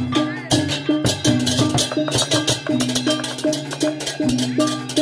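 Balinese gamelan playing: rapid clashing cymbals and drums over bronze gong-chimes repeating a short pitched figure in a steady beat.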